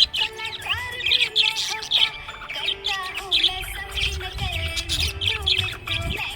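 Budgerigars chirping and warbling in quick, busy chatter, with music playing underneath.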